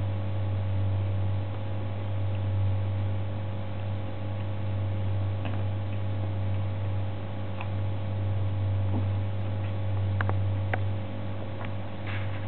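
A steady low electrical hum, with faint scattered clicks and ticks from a kitten eating salmon off a plastic plate, a few sharper ticks near the end.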